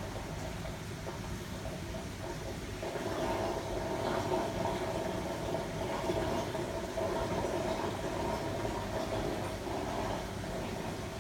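Steady hum of aquarium equipment with air-stone bubbling, a higher hum growing louder about three seconds in.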